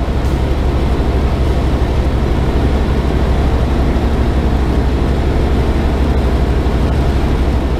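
Tecnam P92 light aircraft's engine and propeller droning steadily in cruise, heard from inside the cockpit with a low hum and airflow hiss.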